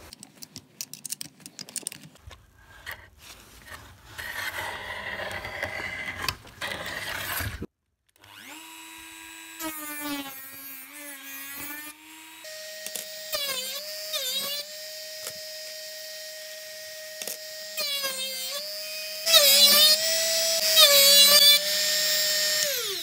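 Clicks and rubbing from handling the sharpening jig, then a rotary tool with a grinding stone starts up about a third of the way in and runs as a high steady whine. Its speed steps up partway through. The pitch dips each time the stone bears on the steel planer blade, with a gritty grinding hiss loudest near the end before the motor winds down. The maker finds the tool too weak for this grinding.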